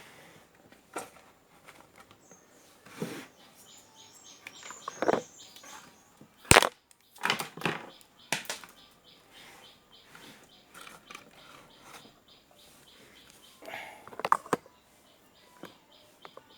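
Scattered clicks, knocks and rustles of hands working on a speaker amplifier board and its cables, with one sharp click about six and a half seconds in.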